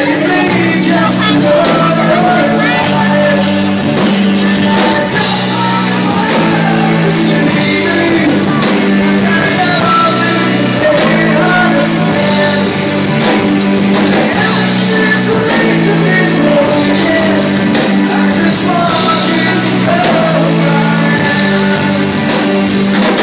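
Live rock band playing loud through the PA: electric guitars and drums, with a man singing over them.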